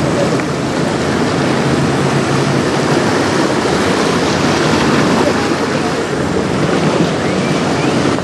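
Strong wind buffeting the microphone over choppy river water, with waves splashing in a steady, loud rush.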